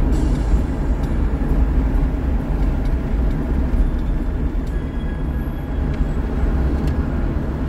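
Steady low rumble of a vehicle driving at highway speed, its engine and road noise heard from inside the cab.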